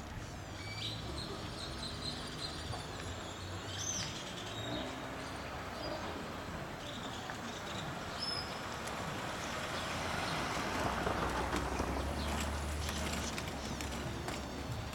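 Street ambience: birds chirping and whistling over a low steady traffic rumble, which grows louder a little past the middle.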